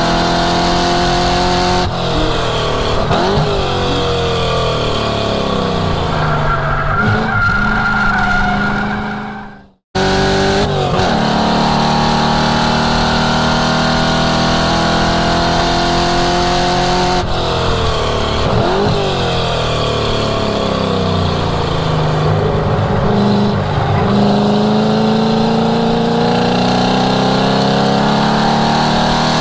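1967 Mustang's V8 running hard under load, its pitch rising through each gear and dropping at the shifts, over and over. The sound fades out just before the ten-second mark and cuts straight back in.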